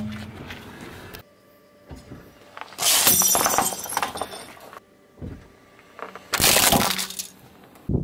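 A car tyre crushing a brittle dish full of sugar-coated candies: a loud shattering crash about three seconds in, followed by a second crunching crash about six and a half seconds in.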